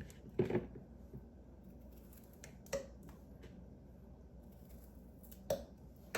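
A few short clicks and knocks of things being handled in a kitchen, three in all, the first the loudest, over a faint steady hum.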